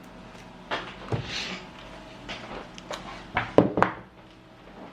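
A series of short clicks and knocks, the loudest cluster about three and a half seconds in: a mains power cord being plugged in.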